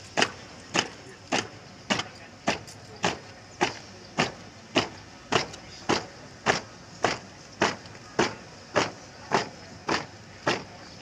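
A marching troop's shoes striking asphalt in unison, a sharp stamp a little under twice a second at a steady marching pace.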